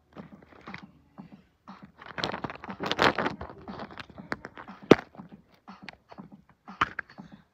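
Plastic bag crinkling as hands rummage among plastic Easter eggs, then sharp plastic clicks, the loudest about five seconds in, as a blue plastic egg is pried open.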